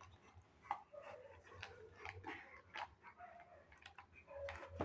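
Quiet sounds of a German shepherd tugging on a toy: brief faint vocal noises with scattered small clicks and scuffs.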